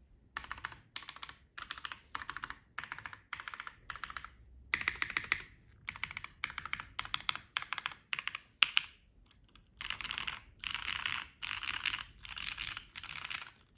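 Typing in quick bursts on a mechanical keyboard with broken-in Cherry MX Black linear switches in an aluminium case: rapid key clacks in runs of about a second, with short pauses between.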